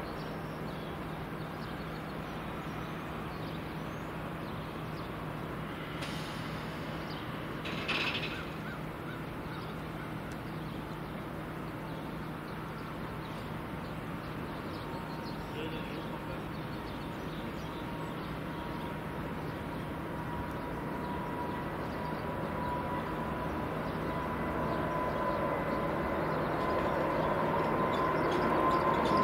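Jet airliner's engines, a thin steady whine that grows louder over the last several seconds as the aircraft approaches, over a constant low hum. A single short bird call about eight seconds in.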